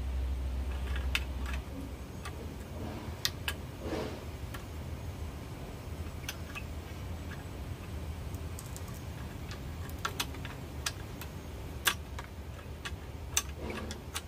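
Scattered sharp clicks and knocks at irregular intervals, from hard pangie (keluak) seed shells being cracked and picked at on a homemade metal jig. A low rumble stops about a second and a half in.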